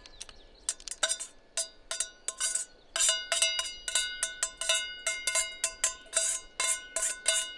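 Metal tongs clinking again and again against a steel frying pan while serving clam spaghetti, about twenty quick taps at an uneven pace. Each tap leaves a short bell-like ring of the pan.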